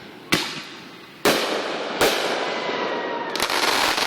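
Consumer fireworks going off: three sharp bangs about a second apart, followed by dense crackling and hiss with a faint falling whistle.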